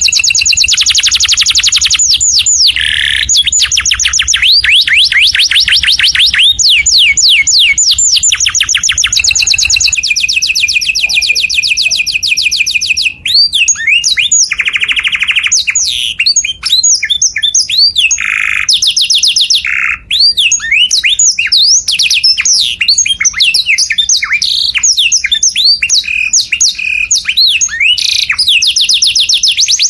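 Canary singing without pause: long, fast trills of rapidly repeated notes alternating with rolling, sweeping phrases, broken by a few very brief gaps.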